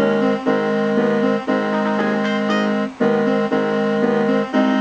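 Background piano music: held chords that change about every second.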